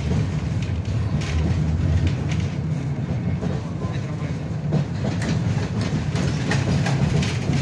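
KTM tram running along its track, heard from inside the car: a steady low rumble with irregular clicks as the wheels pass over rail joints.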